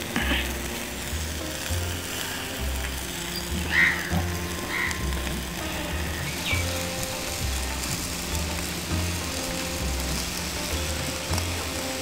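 Sizzling and crackling of fish roasting over charcoal embers, under background music with a repeating bass beat. A few short high chirps stand out near the middle.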